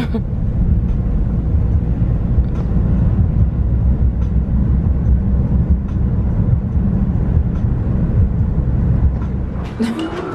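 Steady low rumble of road and engine noise inside a moving car's cabin at driving speed. It dies away near the end, followed by a few short clicks.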